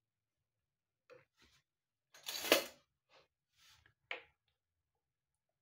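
Metal spoon clinking and scraping against a stainless-steel pan while stirring wet greens and peas: a few short clatters, the loudest about two and a half seconds in and another sharp clink near four seconds.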